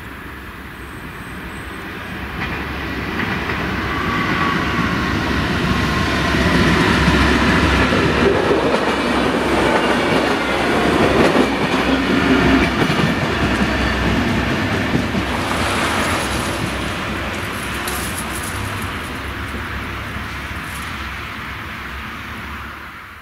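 Diesel railcar passing through a level crossing: the engine and wheels on the rails grow louder over several seconds, are loudest about halfway through as it goes by, then fade slowly away.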